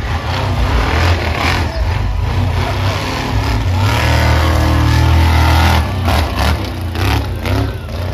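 Monster truck engine revving hard under throttle, a deep rumble that swells to its loudest around the middle and eases off near the end.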